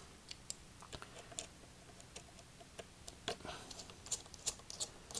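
Faint, irregular clicks and ticks of a very small Phillips screwdriver turning out the tiny screws that hold a laptop LCD panel in its frame, with a few sharper clicks along the way.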